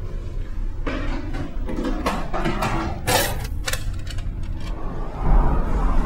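Metal clacks and knocks of a switchgear lever being worked by hand, over a steady low hum. A louder rumble comes in about five seconds in.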